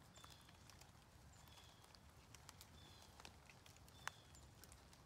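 Near silence: faint clicks and rustles of goats browsing and stepping in dry leaf litter, with one sharper snap about four seconds in. A faint short high peep repeats about every second and a half.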